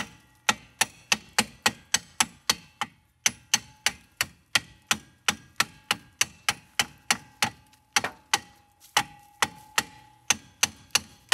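Hammer blows on the rusted, seized brake drum of a 1964 VW Beetle, a steady run of about three sharp strikes a second with a metallic ring, pausing briefly twice. The tapping is meant to knock the rust loose and free the stuck drum.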